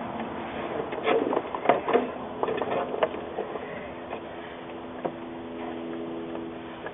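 Clicks and light knocks of hands and tools working a serpentine belt onto the pulleys of a Mercedes-Benz C280 engine, busiest in the first few seconds. A steady low hum sets in about four seconds in.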